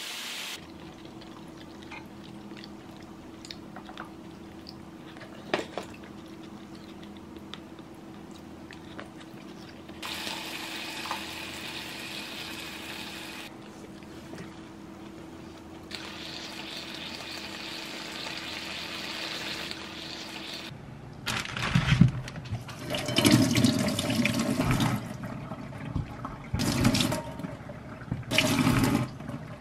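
A quiet stretch of food cooking on an electric grill pan, with a soft hiss and a few light clicks of chopsticks. About two-thirds of the way in, a kitchen tap runs hard into a steel sink, splashing unevenly as sweet potatoes are scrubbed under the stream.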